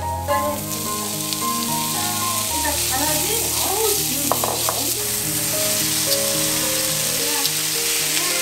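Food sizzling in hot oil in a nonstick frying pan, stirred with a spatula, with a few sharp scraping clicks. Soft background music plays under it.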